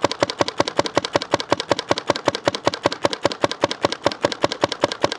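GOG eNMEy mechanical paintball marker firing rapidly on compressed air, an even string of shots at about seven a second.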